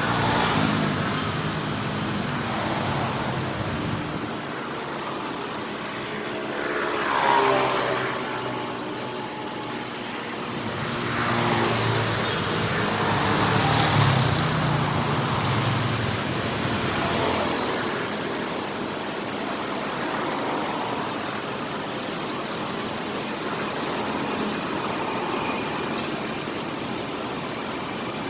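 City street traffic: a steady mix of engines and tyre noise, with several motor vehicles passing close. The loudest passes come about 7 and 14 seconds in.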